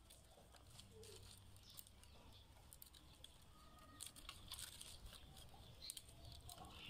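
Faint rustling and light clicking of dry rattan strands being woven by hand into a basket, the clicks coming more thickly from about four seconds in.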